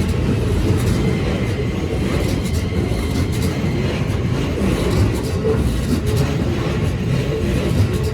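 Keikyu Line electric train passing over a level crossing: a steady wheel-on-rail rumble with scattered rail-joint clicks. The crossing's warning bell rings faintly underneath as a repeating tone.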